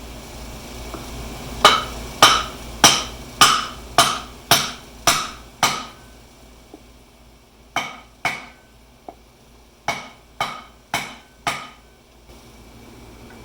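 Hammer striking metal in two runs of ringing blows: about eight at roughly two a second, a short pause, then six more.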